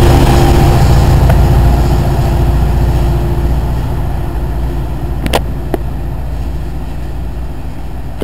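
NJ Transit PL42AC diesel-electric locomotive's 16-cylinder EMD 710 two-stroke diesel under load as it pulls a train away, a deep rumble fading steadily as it recedes. Two short sharp clicks a little past five seconds in.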